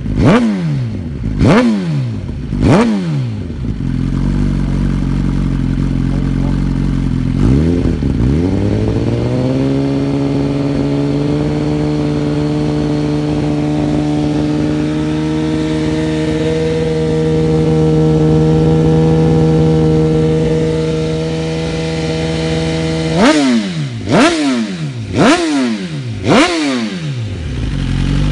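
2017 Suzuki GSX-R1000's inline-four engine breathing through a de-catted, de-valved 60 mm link pipe and race end can. It is blipped sharply three times about a second apart, then idles with a short blip, then is held at a steady raised rpm for over ten seconds. Near the end come four more quick blips before it drops back to idle.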